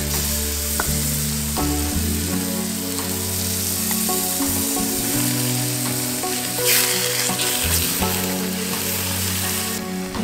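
Onions and spices sizzling in a hot cast-iron pot as tomato puree is stirred in with a metal spatula, with a brief louder surge of sizzling about two-thirds through. Background music with held notes plays underneath.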